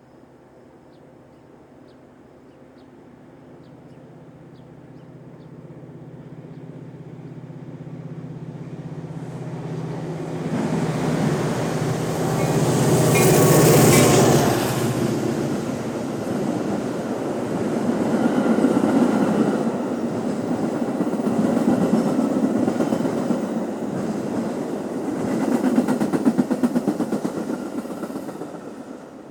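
A train passing: it grows steadily louder as it approaches, is loudest as the front of the train goes by about halfway through, then the cars follow with a rhythmic clatter of wheels over the rail joints in repeated swells, fading out near the end.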